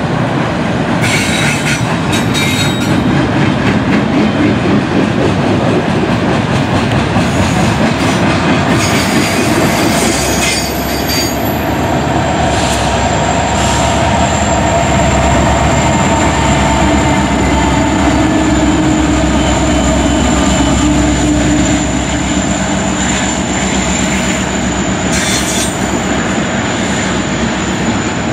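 A double-stack intermodal freight train rolls past, its wheels clattering on the rails and squealing at times. About halfway through, the Union Pacific mid-train helper diesel locomotives pass, adding a deeper engine rumble and a steady high whine.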